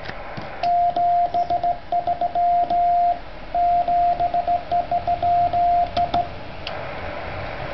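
Morse code (CW) from a Yaesu FT-857 transceiver on the 6 m band: a single-pitched beep keyed in dots and dashes, which stops about six seconds in. After that the receiver's band hiss comes up.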